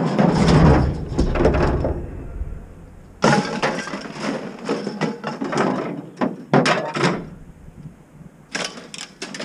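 Loud crashing and clattering of things smashing and breaking, in three spells. The middle spell ends in several sharp hits.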